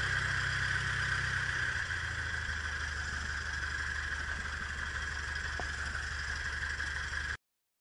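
Cessna 152's 110 hp four-cylinder Lycoming engine and propeller at low taxi power, heard inside the cabin as a steady drone. It cuts off suddenly near the end.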